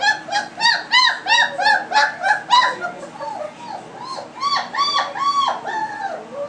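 Three-week-old German Shepherd puppies giving rapid, high-pitched whining yelps, about four short cries a second. They ease off about three seconds in, then return in a second run near the end.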